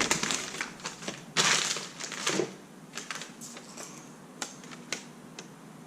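Keys and small objects being handled and rummaged: scattered light clicks, with a louder rustling clatter about a second and a half in, then a few faint clicks.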